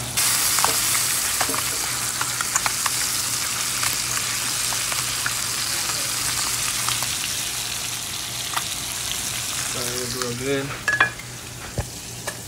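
Striped bass fillets sizzling with frequent small pops in hot butter and canola oil in a cast iron skillet. The sizzle stops about a second and a half before the end, with a couple of sharp knocks.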